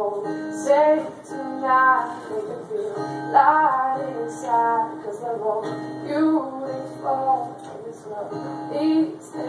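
A woman singing while strumming an acoustic guitar.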